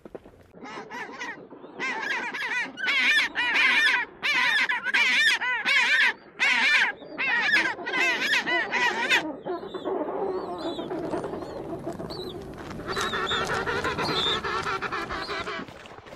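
African penguin braying: a donkey-like series of about a dozen rhythmic honking calls, followed after a pause by one longer call near the end.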